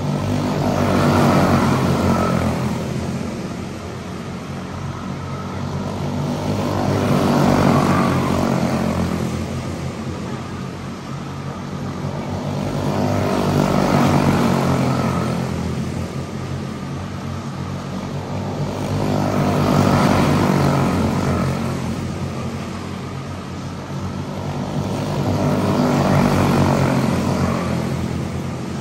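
Pack of quarter midget race cars with single-cylinder Briggs & Stratton Animal engines running around a small oval. The engine drone swells and fades five times, about every six seconds, as the cars come past each lap.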